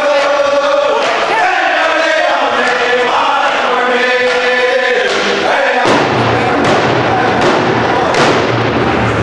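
Round dance song: a group of singers chanting vocables in unison over a steady hand-drum beat. About six seconds in the clear singing drops away, leaving the drumbeats under a noisier wash of voices.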